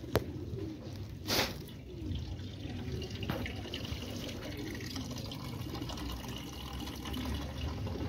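Domestic pigeons bathing in a shallow basin of water, splashing, with soft cooing underneath. A sharp click just after the start and a short burst of noise about a second and a half in.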